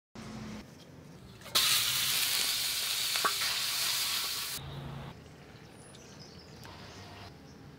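Ground beef frying in hot oil in a Fire Disc cooker's steel pan and stirred with a wooden spoon: a loud sizzle starts suddenly about one and a half seconds in, lasts about three seconds, then dies down to a quieter sizzle.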